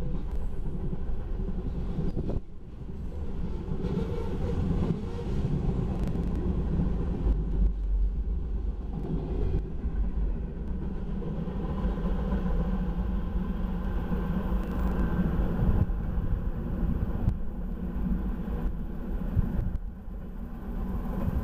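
Freight cars of a manifest train, covered hoppers and tank cars, rolling past on the rails with a steady rumble of wheels on track. The last cars clear near the end.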